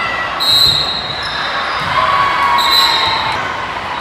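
Volleyball play on an indoor court: sneakers squeaking sharply twice on the gym floor, with dull thuds of ball and feet over a steady hall hubbub.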